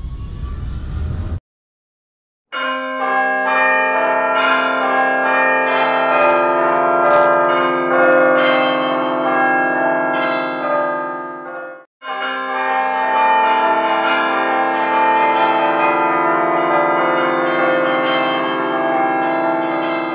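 Church bells ringing, many bells struck over one another with long, overlapping ringing tones, starting about two and a half seconds in; the ringing breaks off for a moment around the middle and then resumes. Before it, a short rising low rumble cuts off abruptly.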